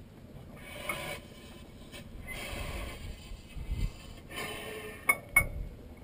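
The big flywheel of a 1908 Hart-Parr 30-60 tractor's two-cylinder engine being pulled over by hand to start it, the engine not yet firing: irregular mechanical scraping and rubbing, with two sharp clicks in quick succession about five seconds in.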